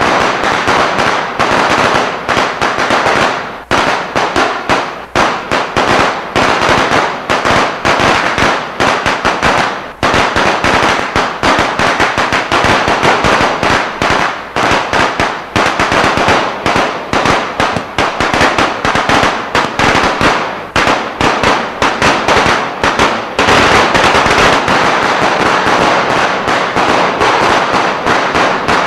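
Eco-friendly firecracker machine going off in a long, unbroken run of rapid cracks like a string of firecrackers, with brief lulls about 4, 10 and 21 seconds in.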